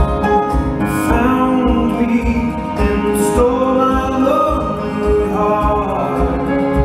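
A male tenor singing a slow ballad live into a handheld microphone over band accompaniment, with a steady low beat about twice a second.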